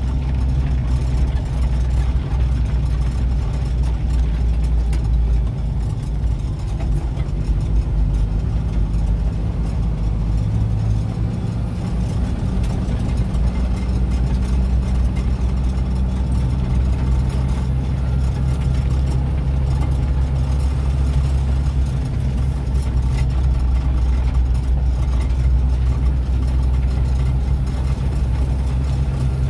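Vehicle engine and road noise heard from inside the cabin while driving at a steady pace: a constant low hum that hardly changes.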